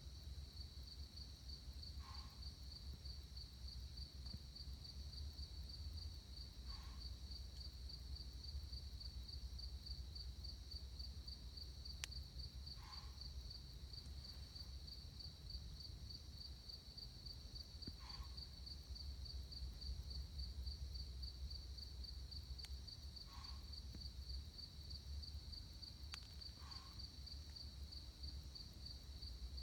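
A distant, unidentified animal gives six short, snort-like calls spaced about five seconds apart, over a steady, fast-pulsing chorus of night insects such as crickets. The uploader likens the calls to a giant cat with a hairball, or something snorting.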